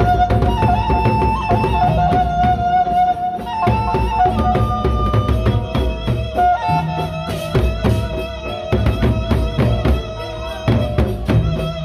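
Sasak gendang beleq ensemble playing: large barrel drums beaten with sticks in a fast, dense rhythm, with clashing hand cymbals. A held melody line steps between a few high notes over the drumming.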